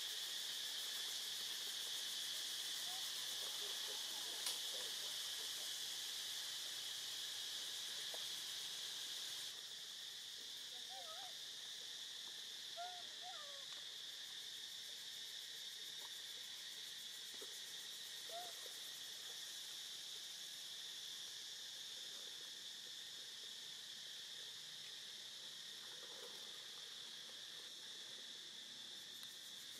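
Steady high-pitched chorus of insects, dropping slightly in level about a third of the way in. A few faint, short calls of some animal sound through it in the middle.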